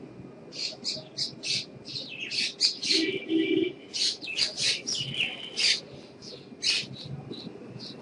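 A bird chirping and squawking in a rapid series of short, high calls, busiest in the middle.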